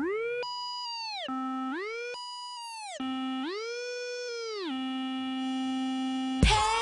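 Background music: a lone synthesizer tone slides up and down in pitch several times and then holds a low note, before the full beat comes back in near the end.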